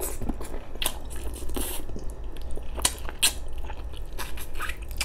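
Close-up eating sounds of a person biting and chewing braised pork ribs: an irregular run of short, wet mouth clicks and smacks, over a low steady hum.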